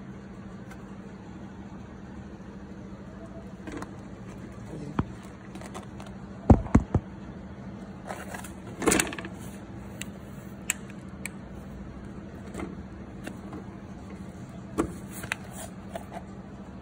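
Handling noise: scattered knocks, clicks and rubbing as a rubber floor mat on a tractor footboard is lifted, bent and pressed by hand, the loudest a few sharp knocks about six and a half seconds in and a longer scrape about nine seconds in, over a steady low hum.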